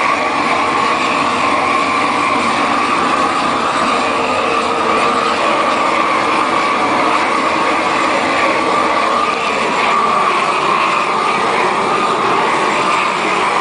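Propane roofing torch burning steadily, a loud continuous rushing noise, as its flame heats the underside of a bitumen torch-down membrane to melt it for bonding.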